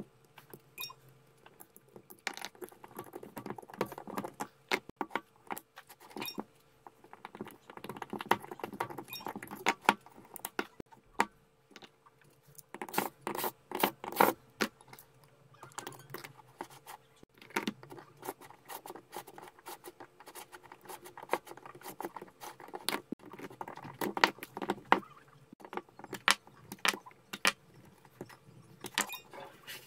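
Irregular metallic clicks and clinks coming in clusters: nickel strips being pried and pulled off the cells of a Dayi A6 battery pack.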